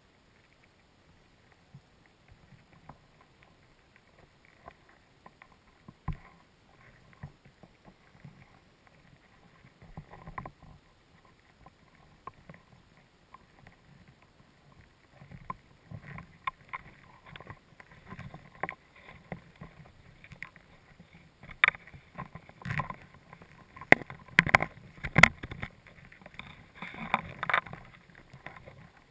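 Irregular sharp clicks and knocks heard underwater through the camera's waterproof housing, sparse at first, then coming thicker and louder from about halfway, with a handful of loud sharp knocks near the end.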